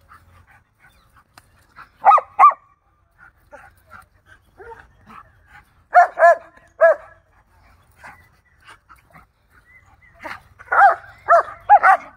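Dogs barking in short, high-pitched barks as a German Shepherd and a young Rottweiler scuffle. There are two barks about two seconds in, three more a few seconds later, and a quicker run of about five near the end.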